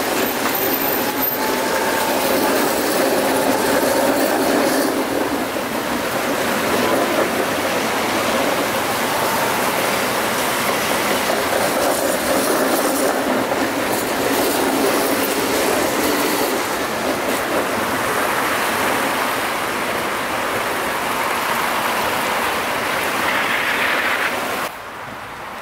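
Electric trams rolling along street rails, a steady rumble of steel wheels on track with a faint wheel squeal, along with passing car traffic. The sound drops off sharply near the end.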